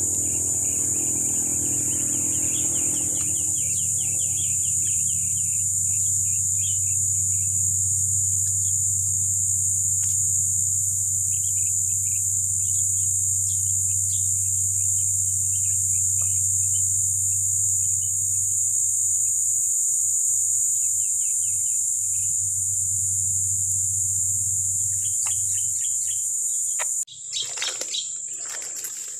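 Steady high-pitched drone of insects with birds chirping in short repeated calls over it, and a low steady hum underneath. Near the end, a brief burst of rustling and knocks.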